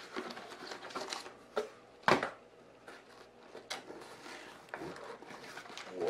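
Paper and cardboard packaging being handled: instruction sheets rustling and the box flaps and inner packing shifting, in scattered short rustles and clicks, with one sharp knock about two seconds in.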